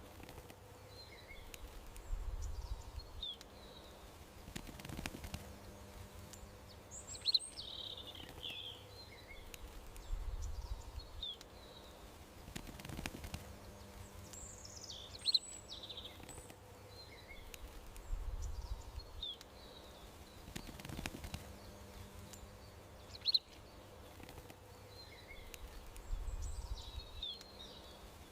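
Small songbirds chirping and trilling, with a sharp, loud chirp standing out now and then, over a low rumble that swells and fades. The whole pattern repeats about every eight seconds, like a looped garden ambience track.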